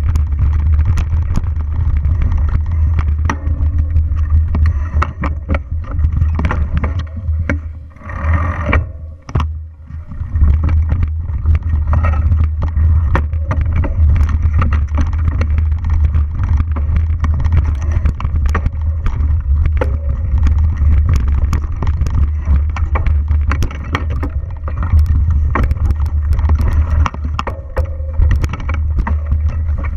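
Mountain bike riding fast over a rough dirt singletrack, heard from a camera mounted on the bike: heavy wind rumble on the microphone with constant rattles and knocks from the bike over the bumps. It eases briefly about eight to ten seconds in.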